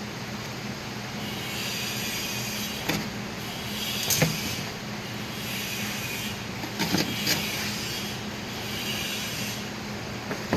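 Rustling and a few light knocks as baling twine is tied off by hand around a compressed bale, over a steady low hum.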